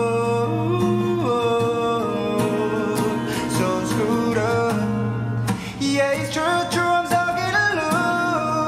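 A male singer's slow song over acoustic guitar, the voice holding long notes and sliding between pitches; the guitar plucking comes through more plainly from a few seconds in.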